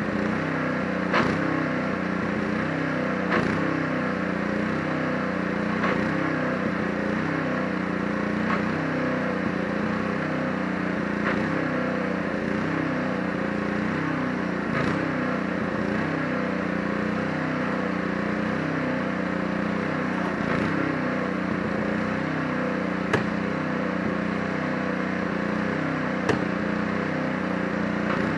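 Pressure washer's small engine running steadily at constant speed, with a light click every few seconds.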